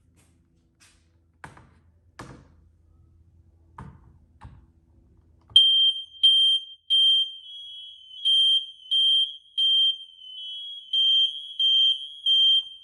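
Hardwired, interconnected smoke alarms going off during a test: a loud, high-pitched beep in groups of three with a pause between groups, the standard evacuation pattern. Several units sound together at slightly different pitches. Before they start, a few faint knocks are heard.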